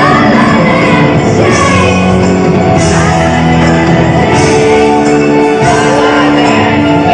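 Live pop-rock band playing with sung vocals and some shouting, loud and reverberant in a large hall, recorded from the audience.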